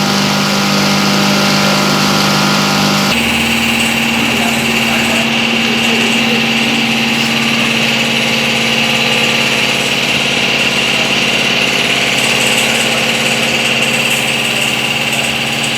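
Wet waste chopper-grinder running with a steady machine hum; about three seconds in its pitch steps slightly higher and a higher whine joins it, then it runs on steadily.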